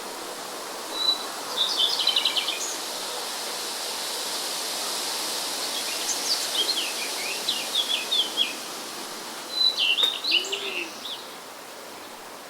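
Songbirds chirping in three short bursts of quick, high notes over a steady hiss of wind.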